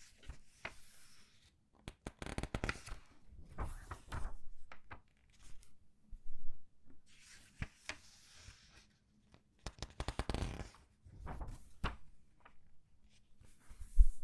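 Comic book pages being turned one after another, each turn a crinkling rustle of paper as the pages are squeezed. A sharp knock just before the end is the loudest sound.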